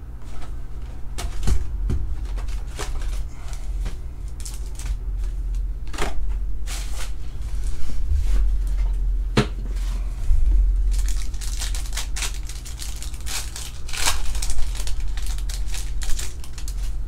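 Trading card box and foil card packs being handled: the cardboard box opened and packs set down in scattered taps and clicks, then a foil pack wrapper crinkling and tearing open in the second half.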